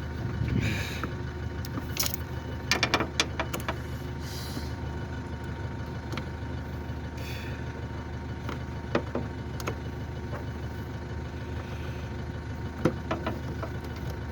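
Scattered clicks and taps of a screwdriver and plastic headlight parts as a Phillips screw is fitted, with a cluster of rapid clicks a few seconds in and single ticks later, over a steady low mechanical hum.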